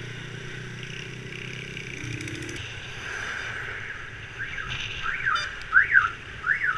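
Steady hum of a motorbike ride on a road. Past the middle, four short electronic whoops rise and fall in pitch in quick succession, each louder than the road noise.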